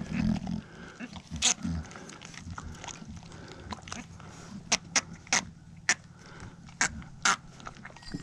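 Boer nanny goat, just dosed with ivermectin paste for worms, grunting low in the first second or two while held, then a run of about six sharp smacking clicks at uneven spacing.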